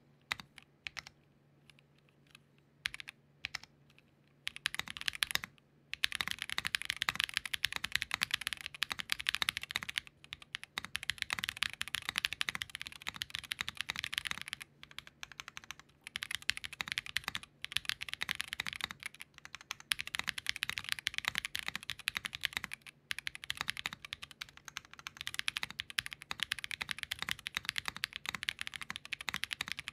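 KBDFans Tofu60 2.0 60% mechanical keyboard being typed on: lubed Built by Nim linear switches in an aluminium plate, plate foam only, on a silicone bowl gasket mount, with DCX keycaps. A few single keystrokes at first, then fast continuous typing from about six seconds in with brief pauses, a crackly sound much like SOTC switches.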